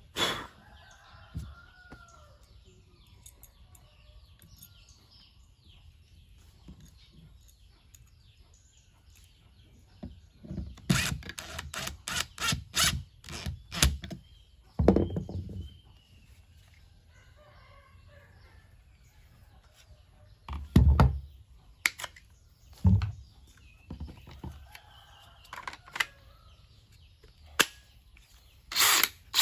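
A rooster crows faintly in the background three times. Sharp clicks and knocks come in between: a quick run of them about a third of the way in, then a few single ones later.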